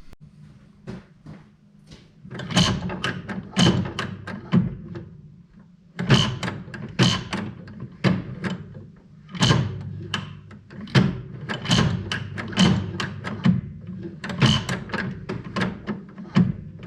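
Background music with a steady beat, sharp percussive hits about two a second over a low sustained bass line.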